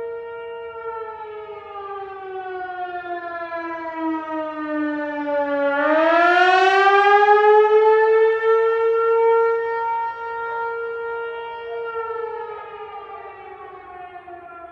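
Tsunami warning siren sounding its monthly test: a wailing tone that slides slowly down in pitch, swings back up about six seconds in and is loudest there, holds, then begins to fall again near the end.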